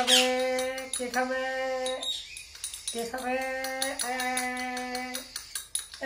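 Baby cockatiels' begging calls during spoon feeding: a buzzing, steady-pitched call held about a second at a time, four bouts with a short break about halfway. A sharp high downward chirp comes at the start.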